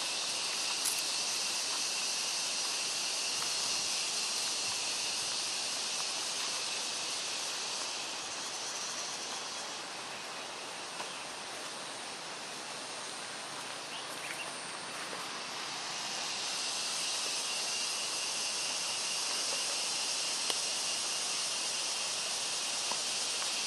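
Steady high-pitched chorus of insects, dipping a little for several seconds midway and then swelling back.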